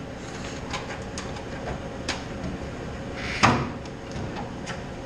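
Scattered metallic clicks and knocks of hand tools and metal parts as a car's hood is unbolted and lifted off, with one louder clunk about three and a half seconds in, over a steady low hum.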